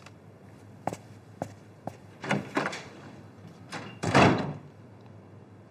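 Door sounds: a few light clicks, then a couple of thuds, and a door shutting about four seconds in, the loudest sound.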